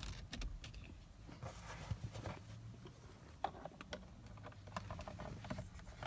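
Faint scattered clicks and small scrapes of a pocket screwdriver and hands working the plastic steering-column trim of a Toyota Corolla, loosening the retaining pin on the column's second side, over a low steady hum.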